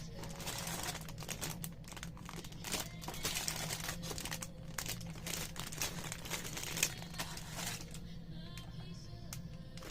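Plastic packaging crinkling and rustling in irregular bursts as a Gunpla model kit is unpacked, fewer crinkles near the end, over background music.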